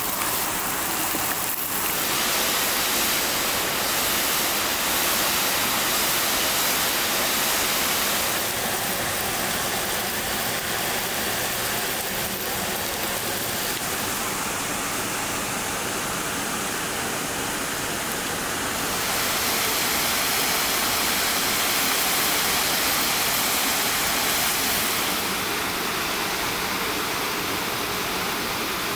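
Waterfall rushing steadily, an even hiss of falling water.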